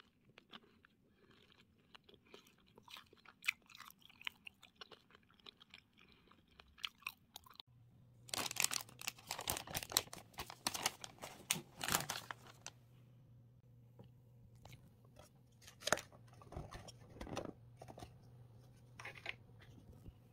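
Someone biting into and chewing crunchy food, with sharp crunches throughout and a dense run of louder crunching about eight to twelve seconds in. A low steady hum starts just before that run.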